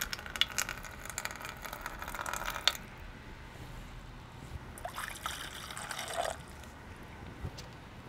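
Water poured from a plastic bottle into a sheet-aluminium vase with silicone-sealed seams, trickling and splashing in two stretches: the first about three seconds long, the second shorter, about five seconds in. The pour is a test of whether the silicone seal holds water.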